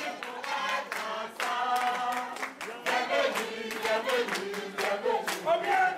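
A choir of voices singing together, with hand clapping keeping the beat.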